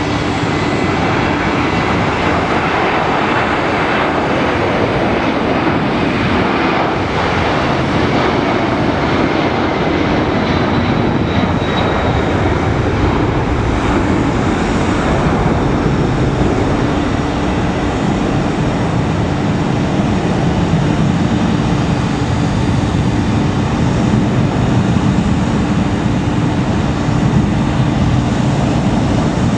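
Boeing 767-300ER's twin turbofan engines at takeoff thrust as the airliner rolls down the runway, lifts off and climbs away. A steady, loud jet noise with a faint high whine in the first half, turning to a deeper rumble with a steady low hum as the aircraft climbs away.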